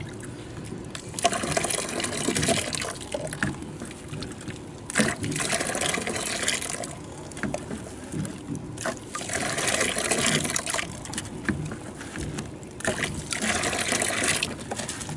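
Water poured from a small cup over rocks in a rock tumbler barrel and splashing into a plastic bucket, in about four separate pours of a second or two each: the rocks are being rinsed of grit between tumbling stages.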